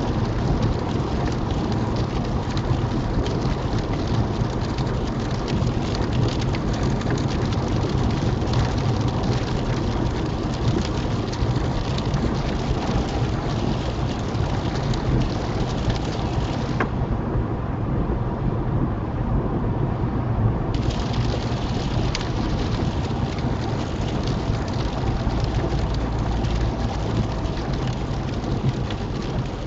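Rain hitting a small car's windscreen over steady road and tyre noise, heard from inside the cabin while driving on a motorway. The hiss of the rain drops away for about four seconds a little past the middle, then comes back.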